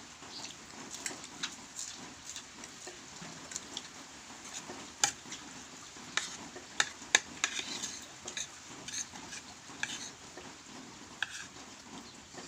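Utensils clinking and scraping against a bowl in irregular sharp clicks, as food is mixed or eaten.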